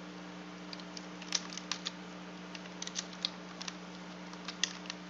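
Computer keyboard being typed on: scattered, irregular key clicks with short pauses between them.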